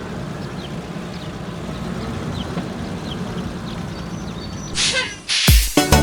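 Cartoon sea ambience: a steady rush of waves with short, high, falling bird chirps about twice a second. Near the end a whoosh sweeps through, and about five and a half seconds in a hit starts upbeat music.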